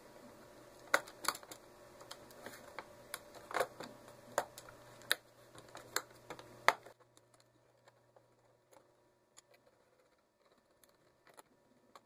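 Plastic bottom access cover of a Lenovo G770 laptop being pressed into place, with a series of sharp, irregular clicks and taps as its edges and clips seat against the case. After about seven seconds only a few faint ticks remain.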